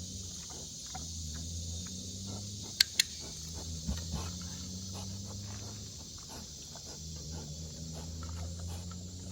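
An animal-training clicker clicks once, a sharp double click, about three seconds in, over a steady chirring of insects and a low steady hum.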